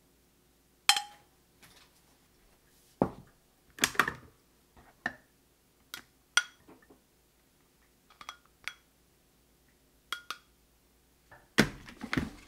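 Dishes and utensils being handled: a string of separate clinks and knocks, a few ringing briefly, with a heavier knock about three seconds in and a louder cluster near the end.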